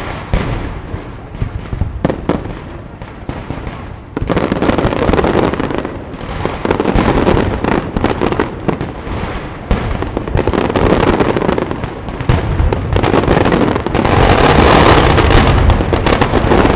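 Aerial fireworks display: shells bursting in dense, rapid volleys of bangs and crackle, building to a near-continuous barrage near the end.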